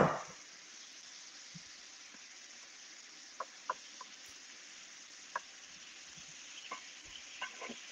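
Mushrooms and Marsala wine sizzling in a hot skillet as the wine reduces: a steady hiss with a few light spatula clicks, growing louder near the end. A sharp knock comes right at the start.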